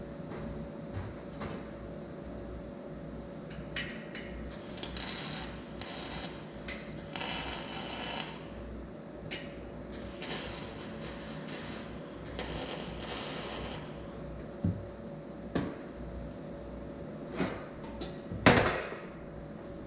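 Arc welder tack-welding a steel frame: about five short bursts of crackling hiss, each lasting a second or less, over a steady hum. A few metal knocks follow near the end, the loudest about a second and a half before the end.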